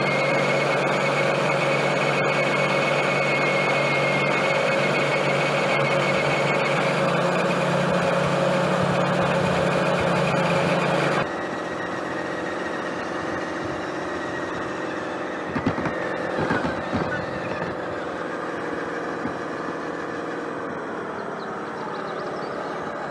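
Radio-controlled 6x6 model truck (a 1/12 scale DUKW on a King Kong CA30 chassis) driving, its motor and drivetrain giving a steady hum with a few held tones. About halfway through it turns abruptly quieter, with a few brief low knocks soon after.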